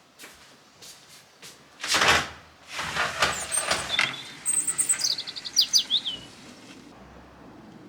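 Small birds chirping: a quick run of high, falling notes about halfway through. Before them come a few scattered clicks and two brief loud rushes of noise.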